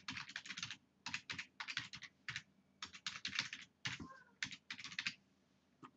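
Typing on a computer keyboard: quick runs of keystrokes with short pauses between them, as an email address is entered.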